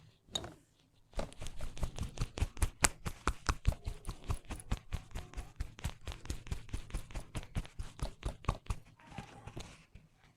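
Rapid, rhythmic slapping of hands striking a person's head during a head massage, about seven strikes a second. It starts about a second in and stops shortly before the end.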